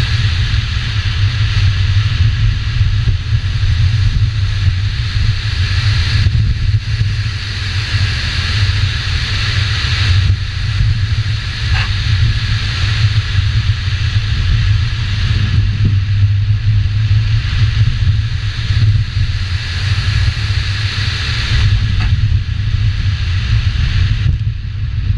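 2000 Subaru Legacy GT's naturally aspirated 2.5-litre flat-four engine running hard through a rallycross run on dirt, with tyres on the loose surface and wind buffeting a hood-mounted microphone. A low rumble stays under a hiss that eases off briefly a few times.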